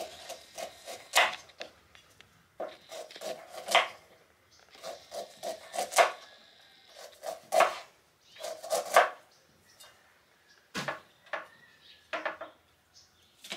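Kitchen knife slicing kernels off tender ears of corn on a wooden cutting board: runs of quick short cuts, each ending in a sharper knock of the blade on the board every couple of seconds.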